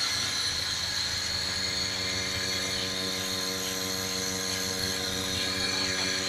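Electric vacuum pump of a portable bucket milking machine running steadily while the teat cups are on the cow and milking: a constant, even hum with a hiss above it.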